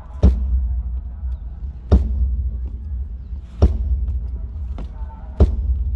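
A drum struck once at a time for a soundcheck through the band's PA, four even hits about 1.7 seconds apart, each with a heavy low boom.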